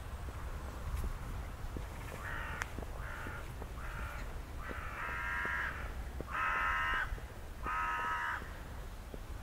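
A crow cawing, a series of about six caws starting about two seconds in, the later ones longer and louder. Footsteps tick faintly and regularly underneath.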